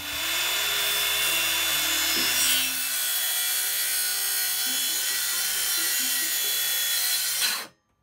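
Cordless circular saw running as it cuts through the laminate-faced top of a cabinet panel, a loud, steady cutting noise that cuts off suddenly near the end.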